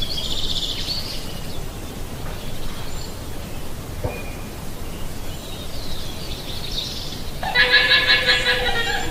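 Llama calling: a short high call at the start, then a louder, quavering call of about a second and a half near the end, over a steady background hiss.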